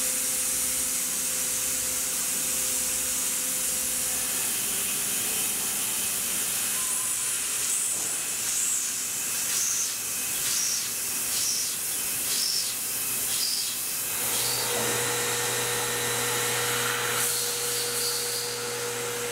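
Tormach 1100M CNC mill machining an aluminium block with a small end mill, under a steady loud hiss of air from the nozzles aimed at the cutter. A faint steady spindle tone runs underneath and changes about three-quarters of the way through, when a lower hum joins it.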